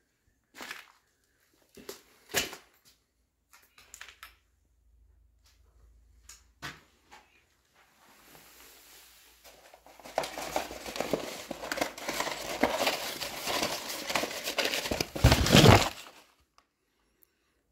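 A few scattered crunches and clicks on rubble, then from about ten seconds in a rolled-up sheet of glossy printed paper being picked up and unrolled, crinkling and rustling for several seconds, loudest just before it stops.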